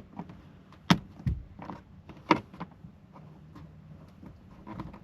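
Sharp clicks and knocks of parts being handled at a truck's dashboard: a loud click about a second in, a dull thump just after, another loud click a little over two seconds in, and lighter ticks between.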